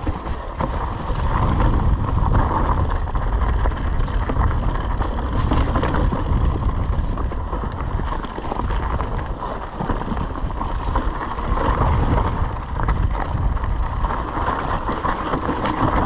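Mountain bike riding fast downhill on a dry, rocky dirt trail: tyres rolling and crunching over loose dirt, leaves and stones, with the bike rattling over bumps and wind rushing over the microphone.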